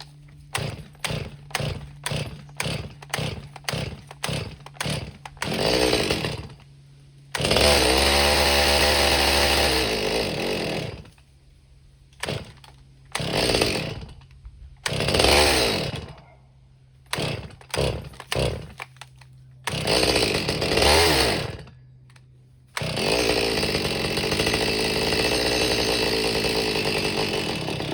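Stihl MS200T top-handle two-stroke chainsaw being pull-started: about a dozen quick cord pulls in the first five seconds. It then catches and runs in short revving bursts that die away, before running steadily near the end. It fires but won't keep going, which the owner puts down to a carburettor problem.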